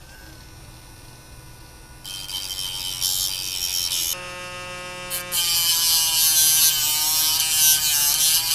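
Small high-speed rotary tool spinning up with a high-pitched whine and grinding down a solder blob on a multimeter circuit board. It starts about two seconds in, gets louder about two seconds later, and its pitch wavers and dips as it is pressed into the work.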